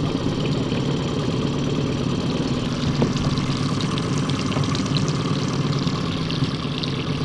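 Boat's outboard motor running steadily at low trolling speed, a continuous even hum.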